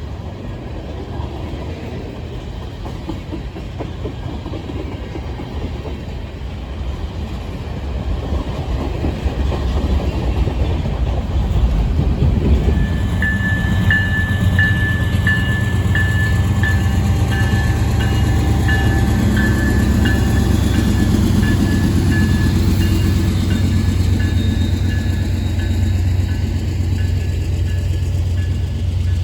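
A freight train rumbling past on the CPKC line, getting louder about eight seconds in, with a bell ringing at a steady pace from about halfway through that slowly fades.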